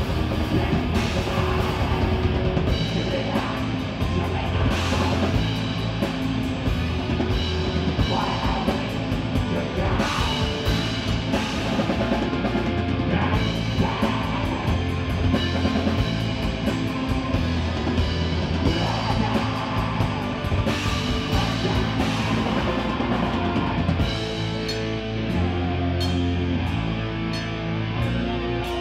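Live black metal band playing: distorted electric guitars, bass and a drum kit going continuously and loudly.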